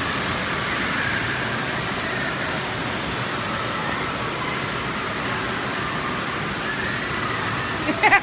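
Steady wash of pool water noise with faint, echoing distant voices in an indoor water park. A louder pitched sound cuts in right at the end.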